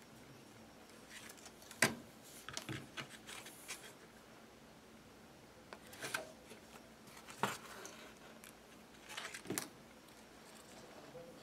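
Quiet handling sounds of hand-stitching leather: short rustles as thread is drawn through the stitching holes and the leather pieces are moved, with three sharp taps spread through, the loudest about two seconds in.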